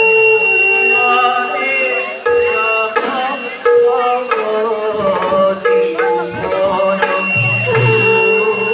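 Live traditional Assamese Bhaona music: hand-drum beats under a melody of long held and gliding notes.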